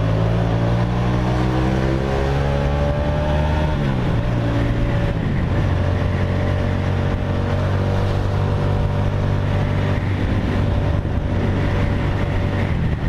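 Kasinski Comet GTR V-twin motorcycle engine with an aftermarket exhaust, heard while riding. The engine note rises slowly, drops about four seconds in, then runs at a steady pitch.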